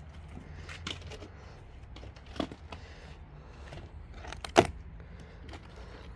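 Scattered light clicks and knocks over a low steady hum, with one sharp, loud knock about four and a half seconds in.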